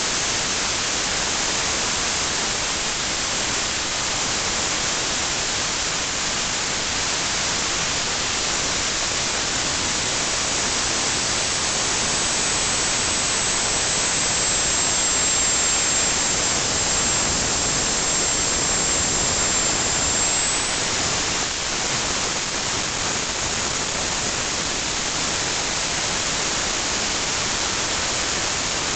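Home-built gas turbine made from a Holset turbocharger, running at idle around 26,000 rpm: a steady, loud rushing roar of air and combustion. A thin high whine joins for several seconds in the middle.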